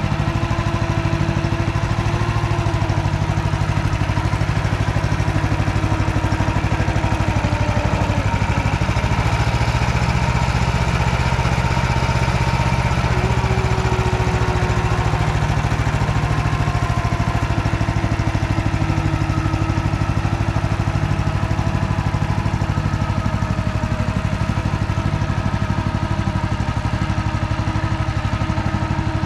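Engine of an MT8-070 Mini single-axle walking tractor running steadily under load while pulling a ZP-130 plough. Its low note strengthens for several seconds in the middle.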